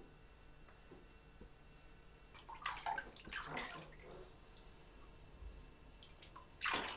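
Bath water splashing in a tub, a toddler playing with a cup: a cluster of small splashes about two and a half seconds in and a louder single splash near the end.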